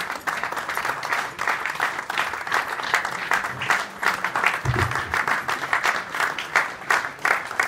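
A small crowd applauding, a steady patter of many hand claps, with a brief low thump about five seconds in.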